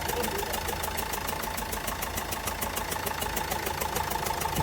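Renault Duster diesel engine idling with a rapid, regular knocking clatter; the mechanic takes the noise for a misfire, with the diesel not burning properly.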